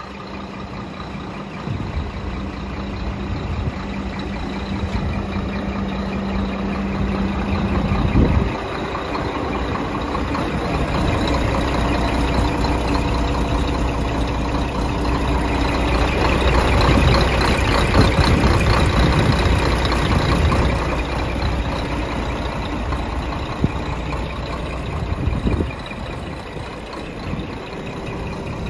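Scania R420 truck's diesel engine idling steadily. A single thump comes about eight seconds in, after which the engine note sits lower. The sound grows louder toward the middle and drops back a few seconds before the end.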